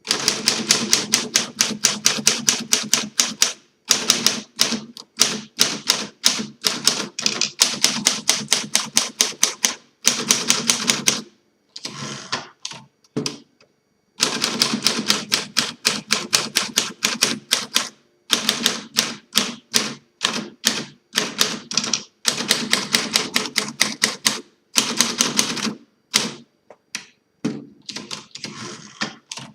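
Typing on a 1939 Smith Corona Standard manual typewriter, freshly refurbished: quick runs of sharp key and typebar strikes, several a second, broken by short pauses. The strikes come more sparsely around the middle and near the end.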